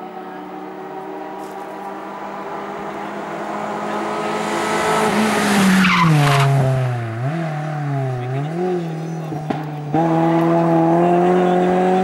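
VW Golf III rally car's engine running at high revs, getting louder as it approaches and passes close by, its pitch dropping as it goes past about halfway through. The revs then dip and rise twice before the car comes back hard on the throttle about ten seconds in and holds steady at high revs.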